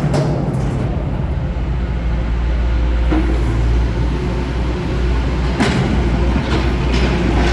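Caterpillar 420 backhoe loader's diesel engine running steadily, with a few sharp knocks near the end.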